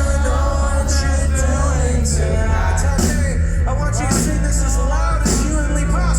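Live pop band playing at full volume: a heavy, steady bass and drums with repeated cymbal hits under a sung melody.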